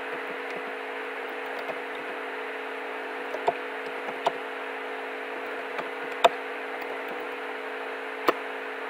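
Steady microphone hiss with a low electrical hum, and a few scattered sharp clicks, the loudest about six seconds in.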